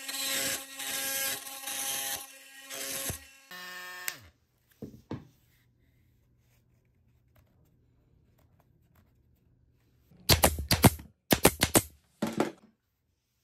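Milwaukee FUEL oscillating multi-tool running with its blade against a nail driven into wood, a loud grinding buzz with a steady hum in it, which winds down with a falling tone about three and a half seconds in. Near the end come three short clusters of sharp clicks.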